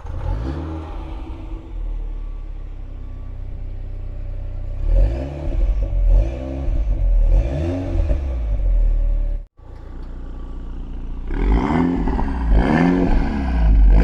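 Mini Cooper S JCW's turbocharged four-cylinder engine running through its JCW sport exhaust: it idles, then is revved in a series of short blips, each rising and falling. The sound cuts out for a moment partway through.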